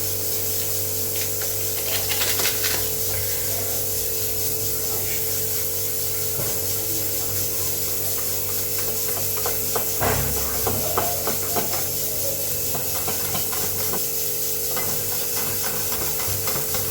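Cake batter being mixed in a bowl: scattered scrapes and light knocks over a steady hiss and hum, with a short run of knocks about ten seconds in.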